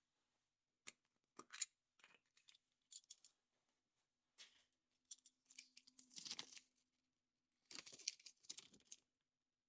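Foil wrapper on a chocolate surprise egg being crinkled and torn, with small clicks of plastic and two longer rustling stretches in the second half.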